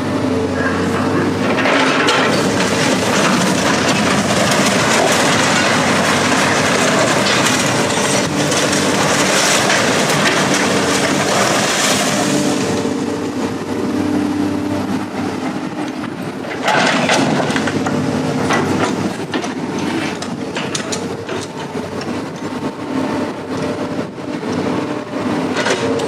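Heavy vehicle or machine engine running steadily under loud, dense rattling and clanking that comes in two long stretches, the first ending about halfway through and the second starting a few seconds later.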